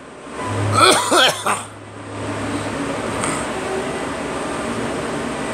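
A person coughing: a quick run of two or three voiced coughs about a second in, then steady background noise.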